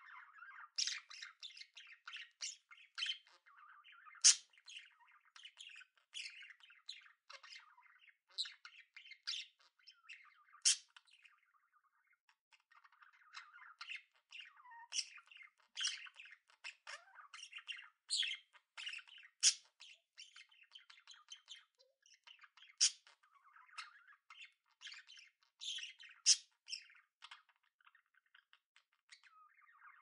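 Budgerigars chattering: a continuous warbling of short chirps with sharp, louder squawks scattered through it, the loudest about four seconds in, and a brief lull near the middle.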